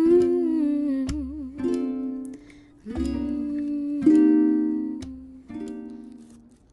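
Background music: a song of plucked-string chords with a sliding, wavering melodic line, dying away near the end.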